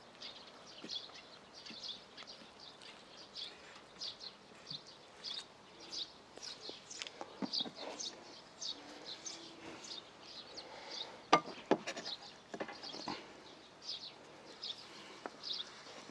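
A few sharp knocks of a knife and spatula against a wooden cutting board, about two-thirds of the way in, as a rolled omelette is cut and a piece lifted off. An animal chirps throughout with short high calls, repeating about every half second.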